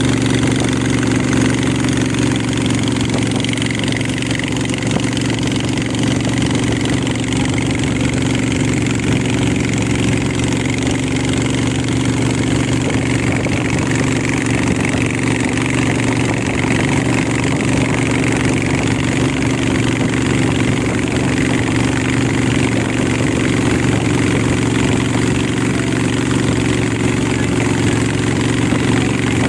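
A boat's engine running at a steady speed, a constant hum that does not change in pitch or loudness.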